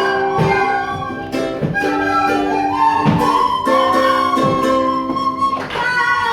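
A class of schoolchildren playing recorders together, a simple melody of held notes over an accompaniment with a steady beat.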